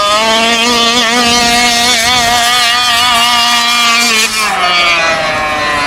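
Taylor 46 GT two-stroke gas engine in a large-scale RC truck running flat out at high revs, its pitch held high with a slight wavering. About four seconds in the pitch drops as the truck goes past.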